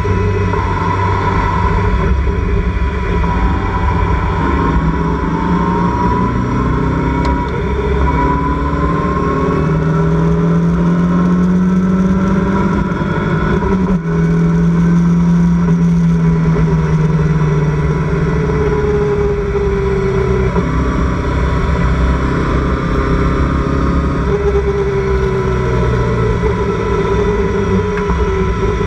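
Locost race car's engine running hard under load in the open cockpit, its pitch repeatedly rising and falling as it accelerates and backs off, with a brief dip in loudness about fourteen seconds in.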